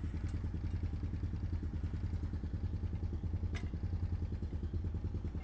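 Honda Foreman 450 ATV's single-cylinder engine idling steadily with an even, rapid pulse.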